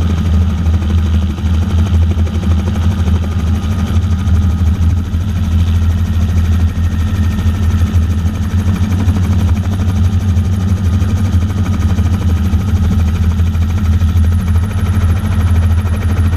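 Helicopter engine and rotor running steadily close up, the blades chopping in a fast, even flutter with a low hum, as the aircraft sits on or just above the ground.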